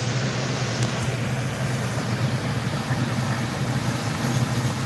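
A steady low mechanical hum with an even hiss behind it, unchanging throughout.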